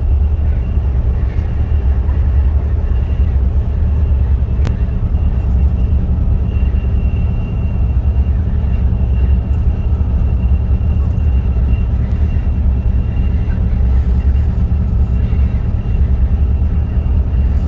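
Steady low rumble of a moving vehicle heard from inside, with a faint steady high whine and a single sharp click about five seconds in.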